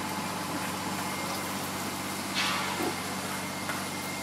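Steady low mechanical hum of a running motor, like an idling engine. A brief rustle comes about two and a half seconds in.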